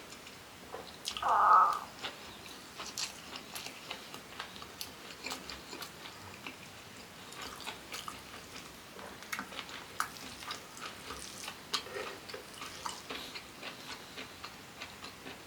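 Close-up mouth sounds of a person chewing a mouthful of rice and pepes, with many small wet clicks and smacks scattered throughout and one louder short sound about a second and a half in.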